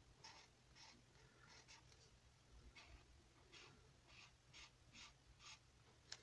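Very faint scratching of a felt-tip marker stroking back and forth across a colouring-book page, about two strokes a second, with a sharper click near the end.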